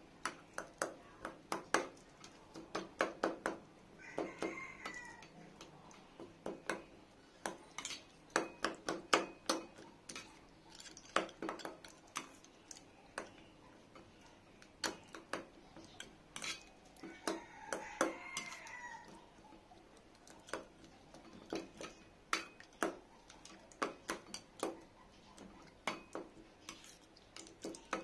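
Metal spoon tapping and scraping against a stainless steel bowl while tamarind pulp is mashed in warm water, in quick, irregular clinks. Twice, a drawn-out pitched call sounds in the background.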